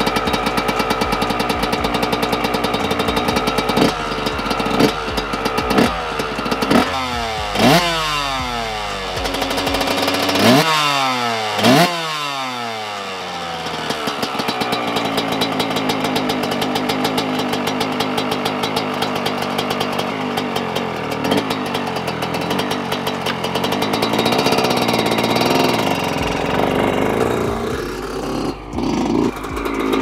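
Yamaha YZ125 single-cylinder two-stroke dirt bike engine, just rebuilt, running at a high idle. It is blipped a few times, then revved hard twice, the pitch rising and falling back, before settling back to a steady high idle.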